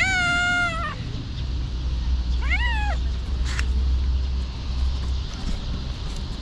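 Stray cat meowing twice: a loud, long meow right at the start, then a shorter meow that rises and falls in pitch about two and a half seconds in.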